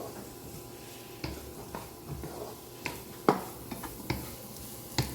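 Spatula stirring vegetables in a frying pan: scattered knocks and scrapes against the pan, the loudest about three seconds in, over a faint sizzle.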